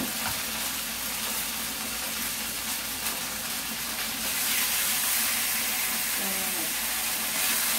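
Milk-marinated beef pieces frying in a hot, lightly oiled pan: a steady sizzle that grows louder about four seconds in as another raw piece is laid in the pan.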